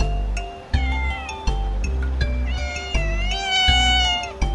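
Black-and-white stray cat meowing twice: a short falling meow about a second in, then a longer drawn-out meow that rises and then falls, with background music underneath.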